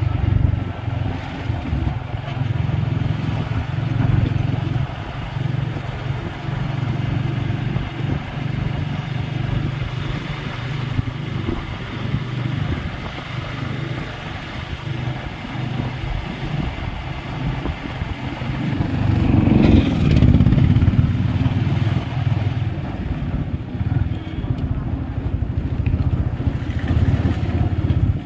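Motorcycle engine running steadily while riding along a road. A louder surge of engine and traffic noise comes about two-thirds of the way through.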